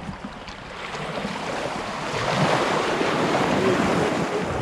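Ocean surf: a wave breaking and washing up the beach, swelling about halfway through and easing off near the end.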